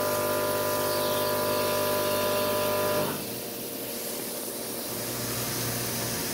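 CNC mill facing a 6061-T6 aluminum plate under flood coolant: a steady cutting whine made of many tones over the hiss of coolant spray. About three seconds in the whine stops abruptly, leaving the coolant hiss and a lower machine hum.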